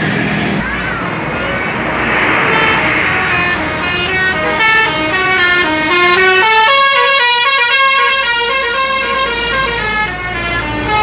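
Bus telolet horn, a multi-tone musical horn, playing a quick tune of stepped rising and falling notes from about four seconds in, over the rush of passing traffic.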